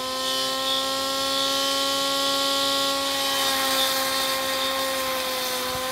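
Ambrogio L50 robotic lawn mower running as it drives and mows: a steady electric-motor whine with a hiss above it.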